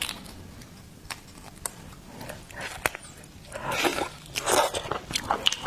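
Close-miked eating: shellfish being bitten and chewed, with scattered sharp clicks and two louder spells of crunching a little past the middle.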